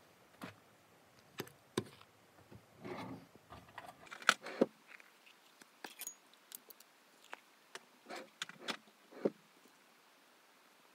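Clicks, taps and rustles of small objects handled on a desk, among them a clear plastic case being opened and closed. The loudest are two sharp clicks a little after four seconds in, with a brief rustle of cloth just before.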